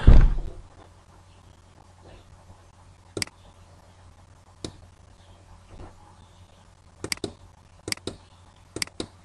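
A loud low thump at the start, then computer mouse clicks: about ten sharp clicks a second or so apart, some in quick pairs.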